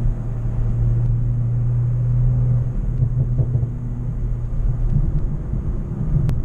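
A BMW M340i's turbocharged inline-six and road rumble while driving: a steady low engine drone that holds for about two and a half seconds, then turns more uneven. There is one sharp click near the end.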